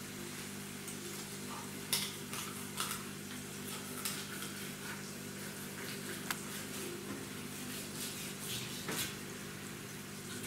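Knife scraping and tapping against a plastic cutting board while a whole fish is filleted: scattered short scrapes and clicks over a steady low hum.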